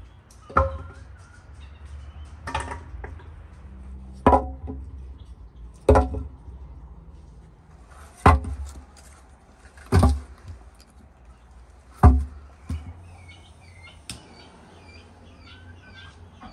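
Split firewood logs dropped one at a time into a round brick pit oven. Each lands with a sharp, hollow wooden knock, about seven in all, roughly every two seconds. Birds chirp faintly near the end.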